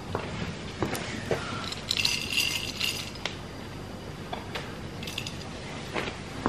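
Dry kibble rattling and clinking for about a second, about two seconds in, with a few light taps before and after.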